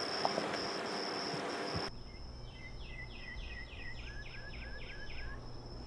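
Rural outdoor ambience: a high insect buzz pulsing steadily over a background hiss. About two seconds in the hiss drops away, and a bird sings a quick run of about ten short, falling whistled notes.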